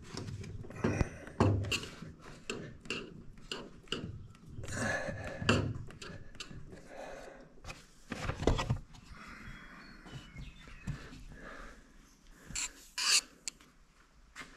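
Rubber bulb seal being worked by hand into the aluminium channel along the camper roof's edge: irregular rubbing and scraping with scattered clicks and a few louder knocks.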